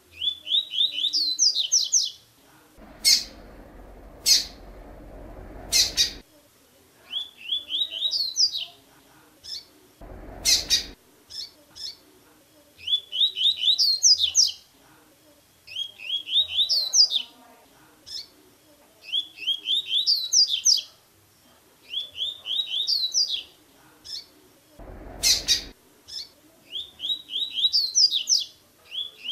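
A double-collared seedeater (coleiro) sings its tui-tui song, a quick run of short rising notes, repeated as a phrase about every two to four seconds. A few brief bursts of noise break in between phrases.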